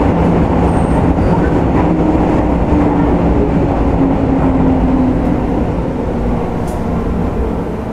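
Running sound inside a JR East 205-series electric train's motor car, heard in a tunnel. The traction motor hum sinks gently in pitch and the sound eases off a little near the end as the train slows.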